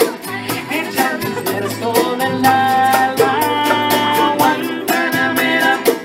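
Live acoustic band music: a guitar played with a steady drum and percussion beat, and a melody sung over it.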